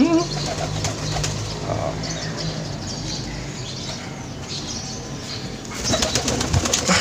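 Pigeon-type birds, a male merpater (pigeon × spotted dove hybrid) with a spotted dove hen, cooing as the male courts and drives the hen. Near the end comes a short burst of loud wing flapping.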